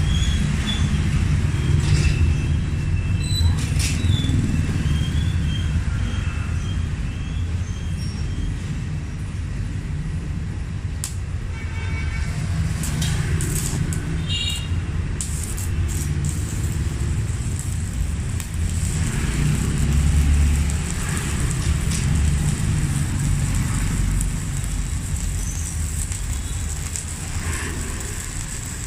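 Steady rumble of passing road traffic, with a few short high-pitched tones in the first seconds and a faint steady high whine that sets in about halfway through.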